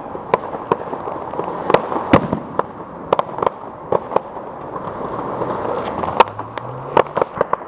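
Fireworks going off all around: sharp bangs and pops come at irregular intervals, sometimes several in quick succession, over a steady background noise. The loudest bangs fall about two seconds in and a little past six seconds.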